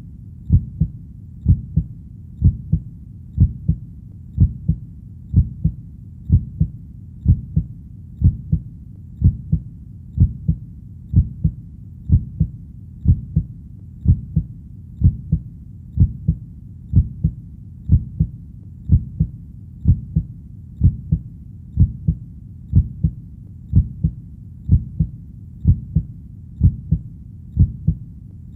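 Human heartbeat beating steadily in a low, even lub-dub rhythm of paired beats, about one pair a second.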